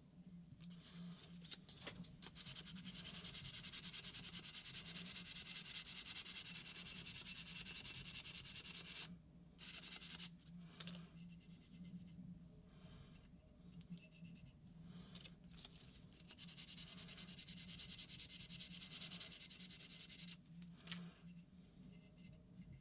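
Hand-sanding a stuck paintball-marker roto-breach rod with 800-grit sandpaper: a faint, scratchy rubbing, held in two long spells with shorter strokes between.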